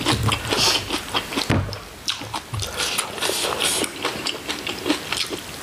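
People eating braised chicken: chewing and mouth smacking, with many small, irregular clicks.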